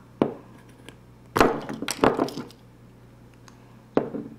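Small glass spice jar and its metal lid and shaker insert clinking and knocking as they are handled and set down on a wooden tabletop. One knock just after the start, a cluster of clinks about a second and a half in, and another knock near the end.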